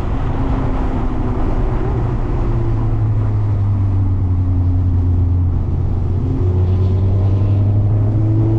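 Mazda MX-5 ND's four-cylinder engine running under load on track, with tyre and road noise underneath. The revs hold fairly steady, ease off slightly mid-way, then climb over the last couple of seconds as the car accelerates.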